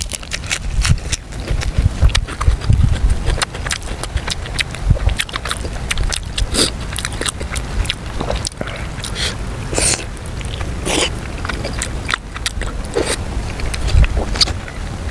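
Close-miked chewing of a mouthful of soft stewed pork, with many wet lip smacks and clicks.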